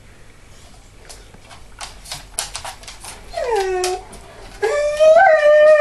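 Rottweiler crying at being left alone. A run of short sharp sounds is followed about three seconds in by a falling whine, then near the end by a long, loud, wavering howling cry.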